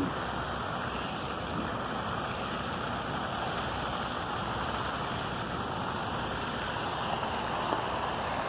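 Steady rushing noise that does not change, with no distinct events.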